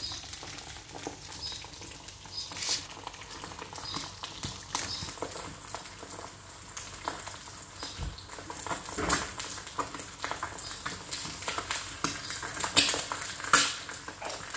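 Eggs frying in a pan, sizzling and crackling steadily. A few louder knocks and scrapes of a spatula against the pan come through.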